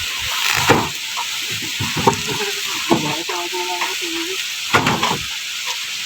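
Motorised corn sheller threshing maize: a steady, dense rushing hiss of kernels and cobs passing through the machine. A voice calls out briefly about three seconds in.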